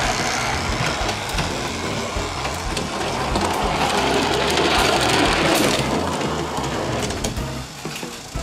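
Small plastic toy vehicles handled and pushed along by hand, a steady rough scraping and rolling noise that starts abruptly and swells loudest in the middle.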